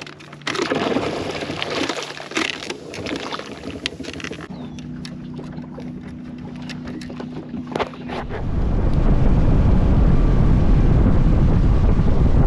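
A boat's motor running with a steady low hum, followed about eight seconds in by loud wind buffeting the microphone as the boat gets under way.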